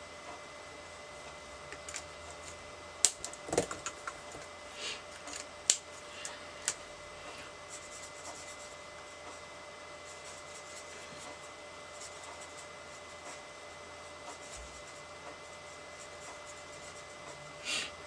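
Quiet handling of alcohol markers while colouring a stamped card: faint rubbing of a marker tip on cardstock, with a few sharp clicks and taps between about three and seven seconds in as markers are picked up and put down. A faint steady hum runs underneath.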